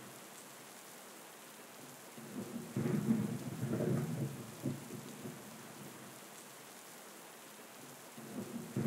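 Thunderstorm: steady rain falling, with a roll of thunder rumbling in a few seconds in and fading by about halfway, and another roll starting near the end.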